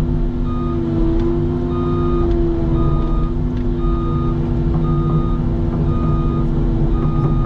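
CAT 310 excavator's diesel engine running steadily under hydraulic work, with a warning alarm beeping about once a second.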